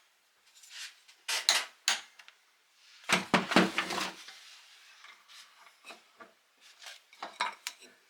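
Metal parts and hand tools clinking and clattering on a work surface while an oil pump is reassembled, with scattered light clicks and a louder clatter about three seconds in.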